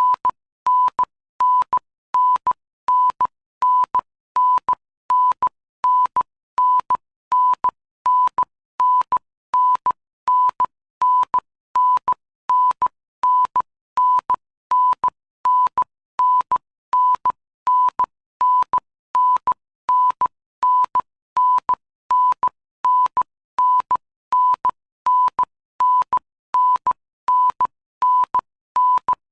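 Electronic beep sound effect: a short, steady, single-pitched high tone repeating at an even pace, a little more than once a second, each beep starting and stopping abruptly.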